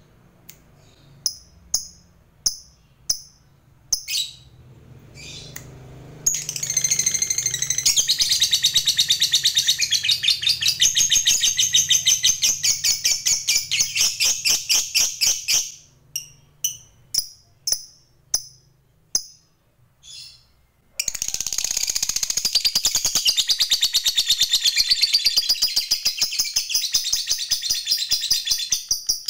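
Lovebird calling: a few separate sharp chirps, then a long, very rapid chattering run of repeated high notes (the 'ngekek' call prized by lovebird keepers), a short pause with more single chirps, and a second long rapid chattering run.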